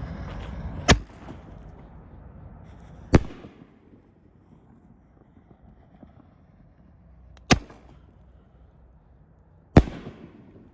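Aerial fireworks going off: four sharp bangs, spaced irregularly a couple of seconds apart, each trailing off in a short echo.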